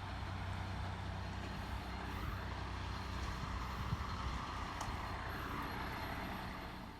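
A vehicle engine running steadily, with a low hum and a noisy wash that swells slightly midway, then cutting off abruptly at the end.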